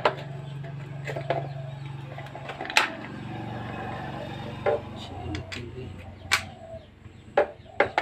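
Scattered sharp metallic clinks and knocks, about eight in all, from tools and parts being handled while a motorcycle's front brake is loosened for refitting the wheel, over a low steady hum that fades out near the end.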